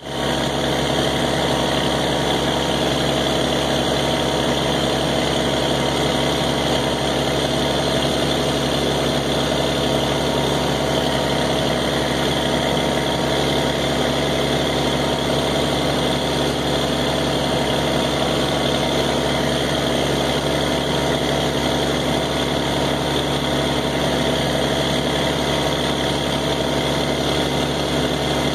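Engine-driven water pump running steadily at part throttle, under automatic throttle control, as outlet pressure builds toward its set target. The engine note holds an even speed with no change.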